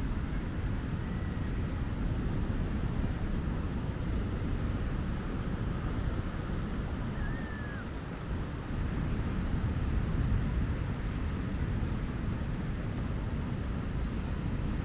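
Steady low rumble of wind and surf on an open beach, with no voices standing out. A faint short chirp comes about halfway through.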